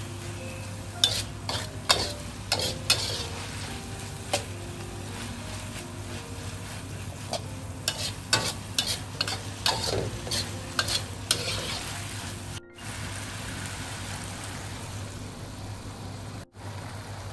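Pork, chilies and pork skin sizzling in a steel wok while a metal spatula scrapes and knocks against the pan in quick strokes for the first eleven seconds or so; after that the steady sizzle goes on almost alone, broken twice for an instant.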